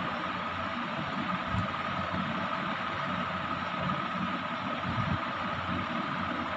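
Steady machine hum with a constant high whine: a running ceiling fan's motor and blades.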